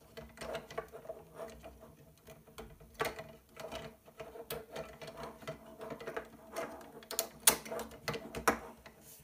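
Plastic Lego Technic parts clicking and rattling as hands work the model's moving parts: an irregular run of light clicks, with a couple of sharper snaps near the end, over a faint steady hum.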